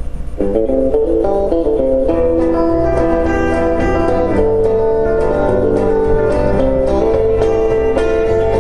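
Instrumental intro of a karaoke backing track for a folk-country ballad: picked guitar notes over a bass line with a steady beat.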